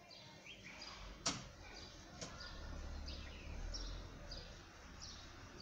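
A bird calling in a run of short chirps that fall in pitch, about two a second, starting about two and a half seconds in, over faint background noise. A single sharp click comes a little over a second in.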